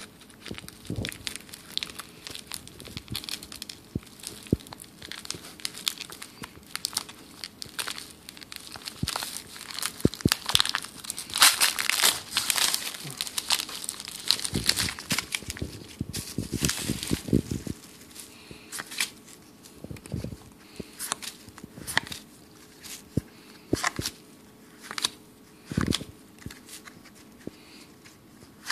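The plastic wrapper of a jumbo pack of football trading cards crinkles and tears as it is ripped open, loudest around the middle. After that come quieter, separate clicks as the cards are slid and flipped one by one.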